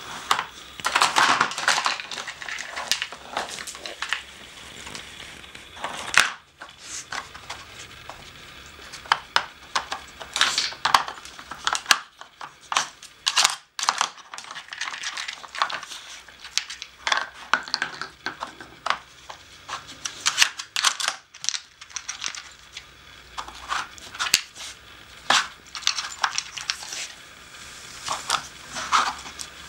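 A dog nosing and pawing at a plastic treat puzzle on a wooden floor: irregular clicks, knocks and scrapes as the plastic tiles and pegs are pushed, slid and knocked about, mixed with crunching sounds.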